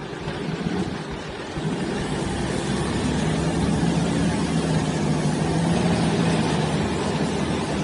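Troller 4x4's engine working under load as it pulls on a taut tow strap, its note rising about a second and a half in and then holding steady.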